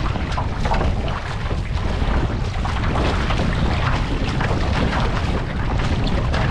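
Wind rumbling on the microphone over sea water splashing and sloshing close by, with irregular small splashes throughout.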